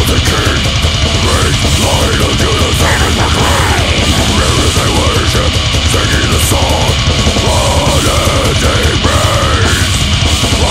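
Death metal: heavily distorted guitars over fast, dense drumming, loud and steady with no let-up.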